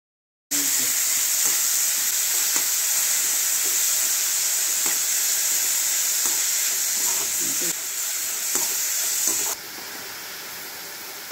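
Chopped onions and green chillies sizzling in hot oil in a metal kadai, stirred with a perforated metal spoon that scrapes against the pan. The sizzle starts abruptly about half a second in and gets quieter near the end.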